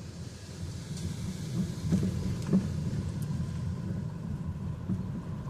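Car driving slowly, a steady low road and engine rumble heard from inside the cabin, with a few light knocks about two seconds in.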